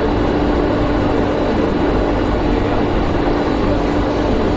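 200-litre vacuum emulsifying mixer running: a steady machine hum with one constant low tone.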